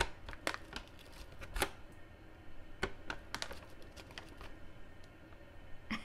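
Plastic bag of frozen blueberries crinkling as a hand rummages in it, a string of irregular sharp clicks and rustles.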